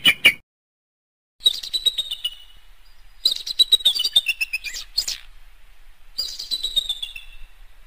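Bald eagle calling: three series of rapid, high, piping notes, each series sliding down in pitch as it goes.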